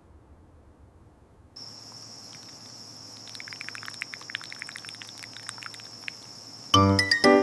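Faint low hum, then from about a second and a half in a steady high insect drone with quick chirping, like a cricket night ambience. Near the end, loud music with plucked, chiming notes starts.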